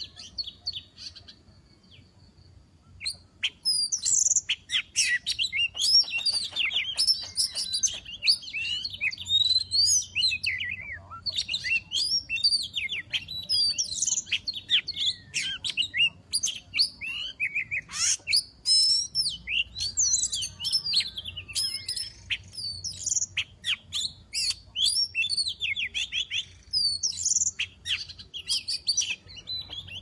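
Oriental magpie-robin (kacer) singing a loud, varied song of rapid whistles and chirps, starting about three seconds in and running on almost without pause.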